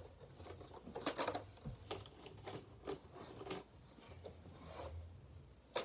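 Clear plastic vacuum cleaner dust bin parts being handled: a series of short plastic clicks, knocks and rubs, loudest about a second in and again near the end.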